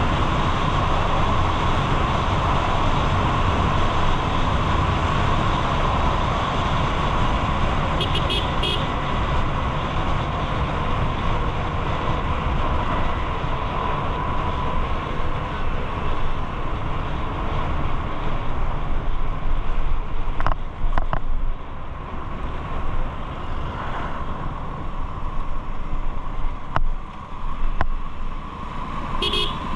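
Highway traffic: steady road and engine noise of moving vehicles, with short vehicle horn toots about eight seconds in, around twenty seconds in and again near the end.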